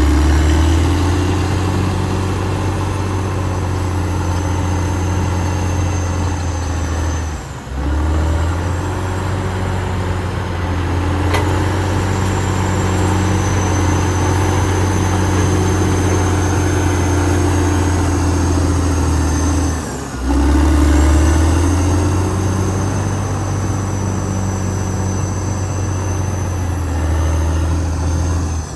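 Caterpillar D6R XL bulldozer's diesel engine running steadily under work, with a deep engine sound and a thin high whine above it. The sound breaks off briefly twice, about a quarter and two-thirds of the way through, then comes straight back.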